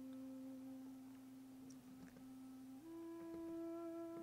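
Soft, quiet ambient background music: a single held low note that steps up to a higher held note, with a fuller, brighter tone, nearly three seconds in.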